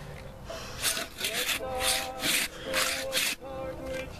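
Cross-cut handsaw sawing through a fallen log: about six rasping strokes, roughly two a second, that start about a second in and stop shortly before the end.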